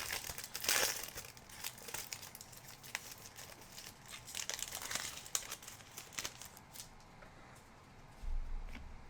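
A plastic trading-card pack wrapper being torn open and crinkled, loudest in the first second, then thinning to lighter crinkling and rustling.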